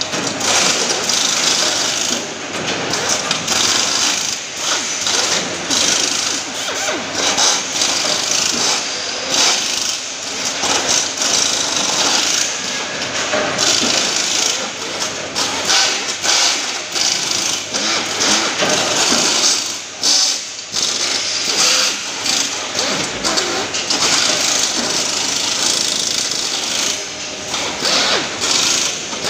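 Welding arc on an aluminium scaffolding frame, a continuous buzzing crackle that wavers in loudness.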